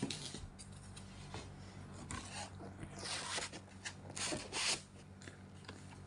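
Packaging being handled: foam inserts and a small cardboard box rubbing and scraping against each other inside a cardboard shipping box, in irregular rustles and clicks. The two loudest scrapes come about three seconds in and about four and a half seconds in.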